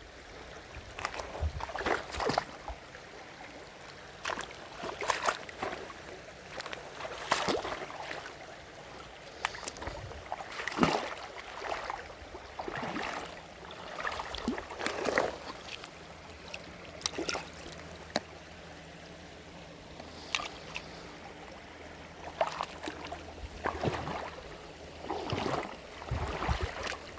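Water sloshing and splashing irregularly, as from wading and hands working in a cold stream, over a faint steady flow of water.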